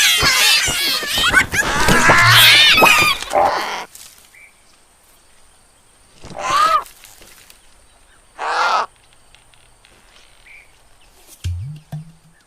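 Cartoon animal voices and sound effects: a few seconds of high, wavering animal-like cries, then two short calls about two seconds apart, and a brief low rising tone near the end.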